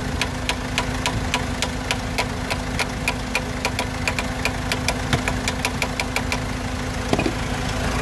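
Rapid light taps on the EGR valve of a 2003 Vauxhall Vivaro / Nissan Primastar 1.9 van, about five a second, over a steady running hum; the taps stop about six seconds in. The valve is being tapped to free a suspected sticking EGR valve while its live data is watched, and it does not respond.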